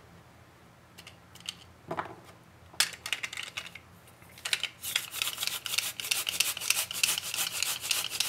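Garlic cloves being forced through a stainless steel grid mincer with a plastic pusher: a few light clicks as the cloves are loaded and the pusher is fitted, then from about halfway in a rapid rasping clatter as the pusher is worked over the grid.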